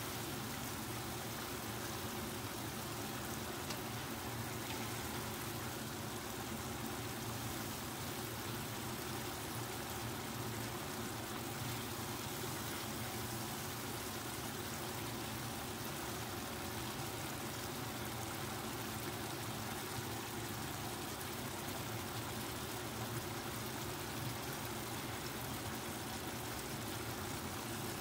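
Oyster sauce with tofu and quail eggs simmering in a wok over a gas flame: a steady bubbling, sizzling hiss.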